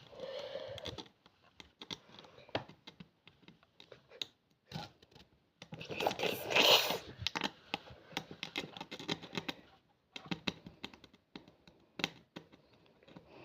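A needle picking and scraping at a thin dalgona sugar candy, making irregular small clicks and scratches, with a denser, louder spell of scraping about halfway through.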